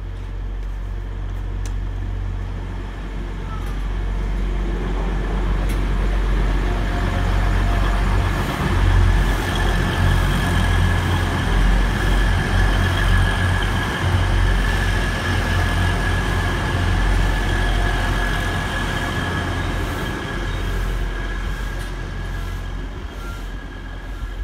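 Grand Central Class 180 Adelante diesel multiple unit running past on the through line. Its diesel engines and wheels on the rails grow louder as it nears, are loudest through the middle and then fade, with a low engine drone under a steady high whine.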